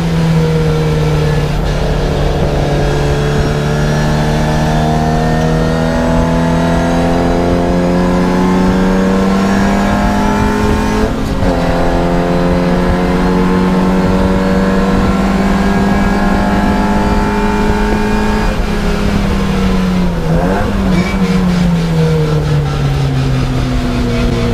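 Racing car's engine heard from inside the cockpit, running hard at full throttle, its pitch slowly climbing with a sharp momentary dip about eleven seconds in. From about eighteen seconds the note falls as the car slows for a corner, with a short rise and fall in pitch just after twenty seconds.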